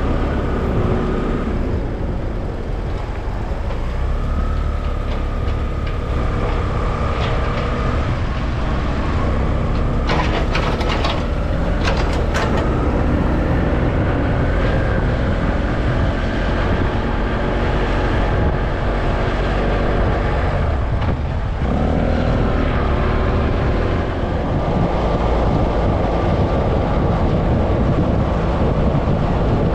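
A motor vehicle's engine running under way, a steady low rumble with road noise whose pitch rises and falls; it dips briefly about two-thirds of the way through. A quick cluster of sharp clicks or rattles comes about a third of the way in.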